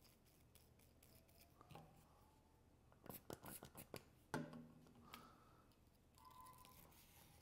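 Faint handling of a steel cleaning rod and bore brush: a quick run of small scratches and clicks about three seconds in, ending in one sharper knock, with a few faint ticks after.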